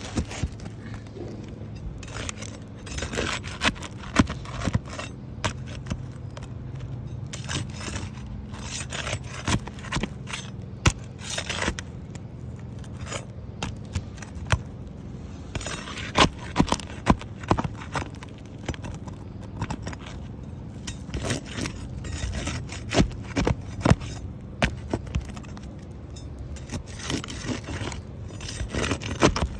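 Asphalt roof shingles being worked loose with a flat steel pry bar: irregular scraping with sharp clicks as the bar slides under the tabs and lifts them.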